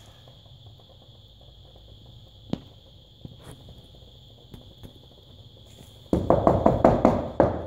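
A few small sharp clicks over a quiet background, then, about six seconds in, a quick run of loud taps, roughly seven a second, lasting about a second and a half.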